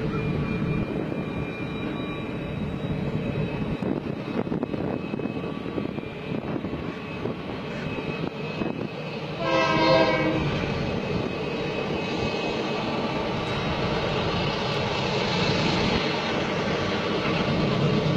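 Train running with a steady rumble. About halfway through, a locomotive horn sounds once for about a second. In the last few seconds the rumble grows louder and a higher hiss joins in.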